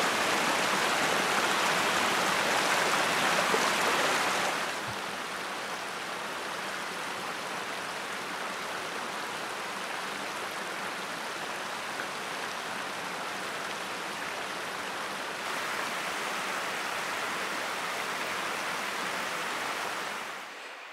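Creek water rushing steadily. It is loud at first, drops abruptly about four and a half seconds in, rises a little again about fifteen seconds in, and fades out near the end.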